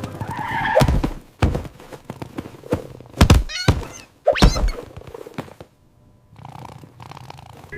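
Cartoon chase sound effects: a string of thunks and quick impact hits, with a short wavering squeak in the middle.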